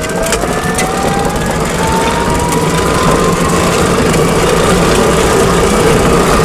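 Twike electric three-wheeler accelerating: its electric motor whines, rising in pitch over the first few seconds and then holding, over a steady rushing noise that slowly grows louder.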